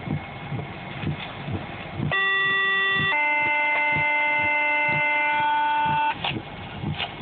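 Two-tone sequential dispatch page on a scanner radio: a steady tone for about a second, then a different steady tone held for about three seconds, which pages fire crews to a call. Storm noise on the car with soft regular thumps comes before and after the tones.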